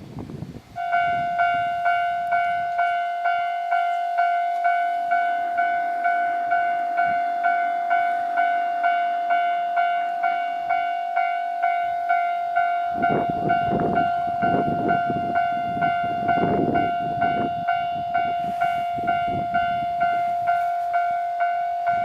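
Japanese railway level-crossing warning bell starts about a second in and rings steadily, a high electronic ding about twice a second, signalling that a train is approaching. A low rumble comes and goes for a few seconds midway.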